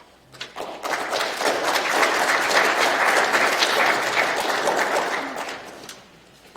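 Audience applauding: a few claps about half a second in quickly build into full, dense applause that dies away about six seconds in.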